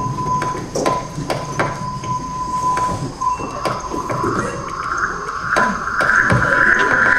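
Experimental electronic sound score: a steady high tone over a low hum, with scattered clicks and knocks, and from about three seconds in a hissing swell that slowly rises in pitch and grows louder.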